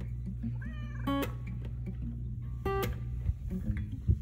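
A domestic cat meows briefly, a short call that rises and falls in pitch, over soft acoustic guitar background music.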